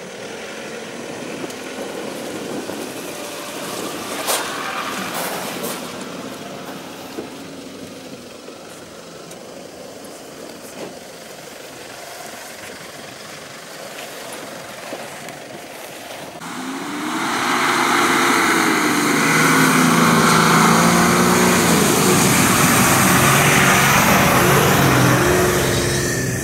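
4x4 engines running and revving as the off-road vehicles climb a slope. About two-thirds of the way in, the sound jumps much louder, with heavy wind noise on the microphone and an engine revving up and down.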